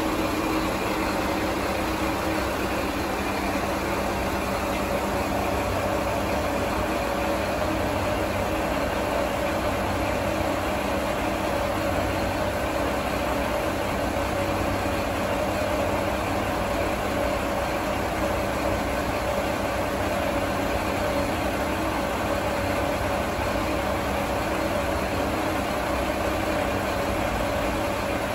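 Sanriku Railway 36-700 series diesel railcar idling at a standstill: a steady engine hum with several held tones over a low rumble.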